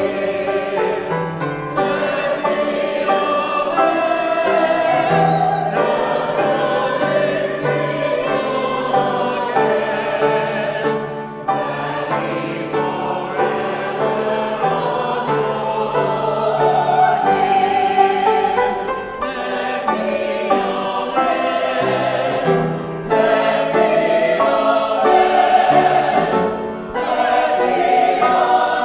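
Mixed church choir of about thirty voices singing an anthem in harmony, held notes in phrases with short breaks between them.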